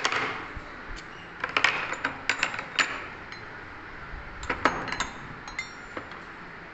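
Metal hand tools being set into a toolbox: clusters of sharp clinks and knocks, with a brief metallic ring after some of them.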